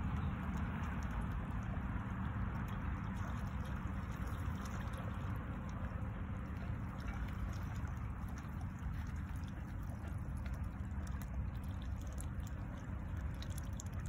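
Mallards dabbling in shallow water: a steady wet pattering and splashing with many small clicks, over a low rumble.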